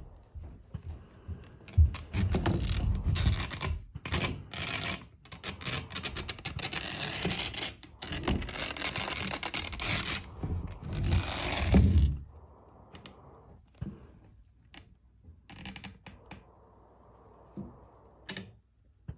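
Rubbing and scraping handling noise as a gloved hand works a handheld inspection camera and feeds its probe cable through a hole in the ceiling. Loud and continuous from about two seconds in until about twelve seconds, then fainter scratches and a few sharp clicks.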